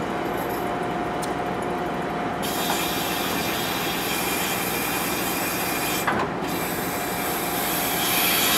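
Ferry's deck mooring winch running as the crew haul in a mooring line: a steady mechanical rubbing noise with a faint steady whine, and a hiss that comes in about two and a half seconds in.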